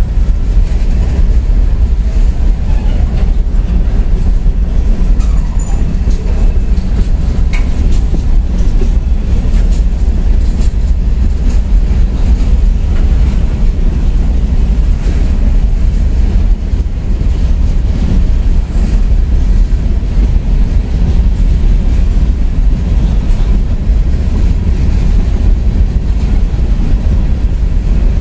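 A CSX freight train of open-top coal hopper cars rolling steadily past at close range: a loud, continuous low rumble with wheel clatter over the rails.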